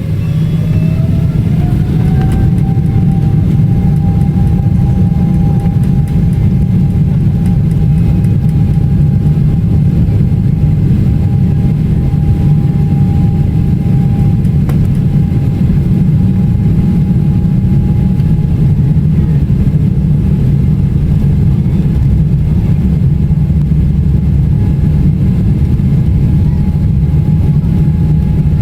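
Boeing 777-300ER's GE90-115B turbofan engines spooling up to take-off thrust, heard from inside the cabin: a whine rises in pitch over the first two seconds and then holds steady above a loud, steady rumble.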